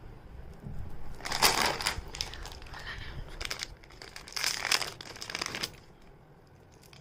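Packaging being crinkled and crumpled as a jewellery parcel is opened, in two rustling spells: one about a second in, a second one about four and a half seconds in.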